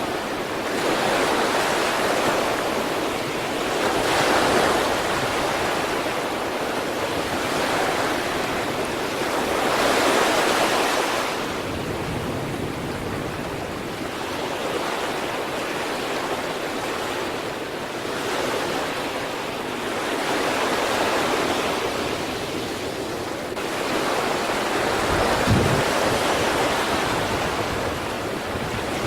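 Sea waves breaking and washing on the shore, the surf swelling and easing every few seconds, with a little wind noise on the microphone and a short low thump near the end.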